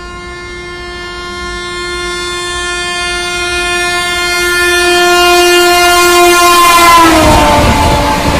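Locomotive horn of a Rajdhani Express held in one long blast as the train approaches at speed, growing steadily louder. Near the end the horn's pitch drops as the locomotive passes, and the rush and clatter of the passing coaches takes over.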